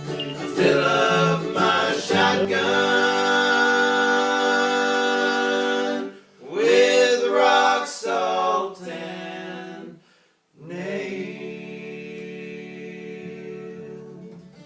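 Music: voices singing unaccompanied in close harmony, holding long chords, with short breaks about six and ten seconds in.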